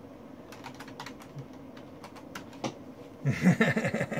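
Typing on a computer keyboard: a string of separate key clicks, a message being typed into a chat. Near the end a louder voice cuts in, rising and falling in pitch.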